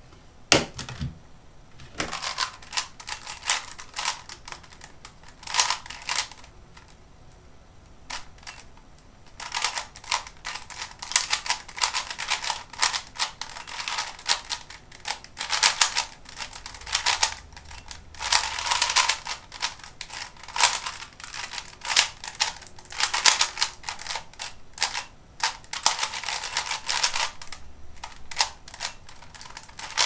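Type C DIY 3x3 speedcube being turned fast by hand: rapid bursts of plastic clicking and clacking as the layers snap round, broken by short pauses, the longest a few seconds about a quarter of the way in.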